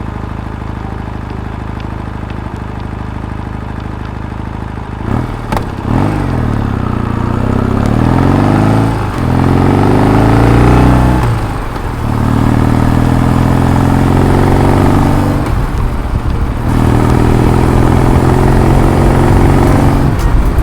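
Vehicle engine running steadily, then pulling away about five seconds in and accelerating through the gears. Its pitch climbs and drops back at each of about three upshifts before it settles into steady cruising.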